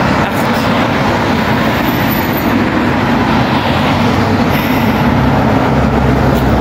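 Road traffic passing close by: a loud, steady rush of engine and tyre noise, with a deeper rumble building near the end.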